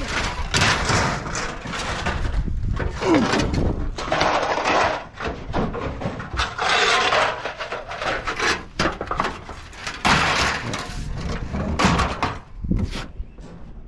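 Scrap being handled and tossed: a run of crashes and rattling clatter, one after another.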